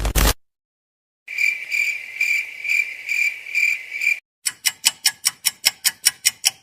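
Cricket-chirping sound effect: a high, pulsing chirp repeating about twice a second for about three seconds. It is followed by a rapid, even series of sharp ticks, about six a second.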